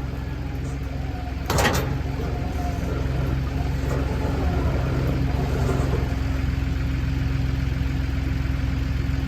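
Engine idling steadily, with a brief loud burst of noise about a second and a half in.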